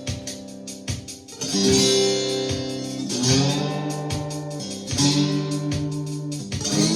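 Guitar in open C tuning played with a glass pick: sustained notes that slide up into pitch about three times, over a steady ticking beat.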